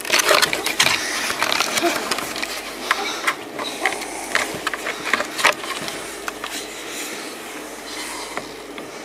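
Handling noise of a phone's microphone rubbing and scraping against fabric, with many sharp clicks and taps. The clicks are busiest in the first half and thin out toward the end.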